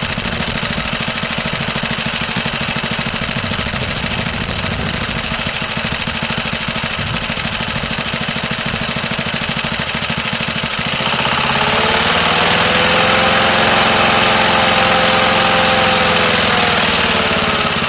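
Small lawnmower engine running on hydrogen-oxygen (HHO) gas fed into its air intake, at a steady idle. About eleven seconds in it speeds up and gets louder, its pitch rising and holding for several seconds, then sagging back down near the end.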